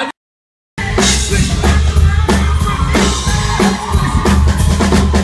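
Live rock band playing, with a steady drum-kit beat and a heavy bass line. It starts about half a second in, after a brief dead-silent gap at an edit.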